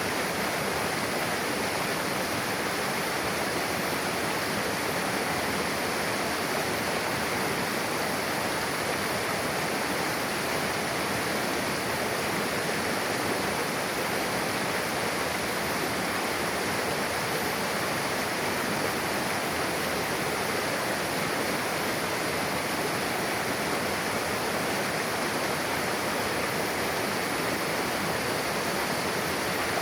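Mountain river rushing and splashing over rocks, a steady, unbroken roar of fast water where two streams meet.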